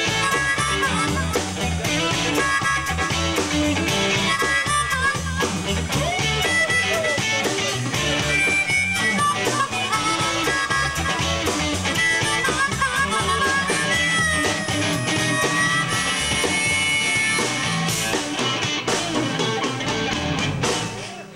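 Live blues band playing: a blues harmonica takes the lead with bent, wavering notes over electric guitar, bass guitar and drums.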